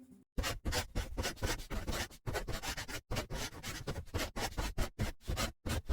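Irregular scratching and rubbing noises in quick, uneven strokes, broken by short pauses.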